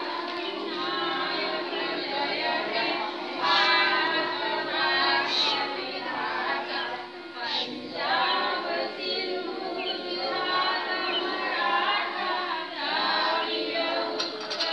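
A group of schoolchildren singing together in chorus, a patriotic song at the flag hoisting, with a steady held tone underneath in the first half.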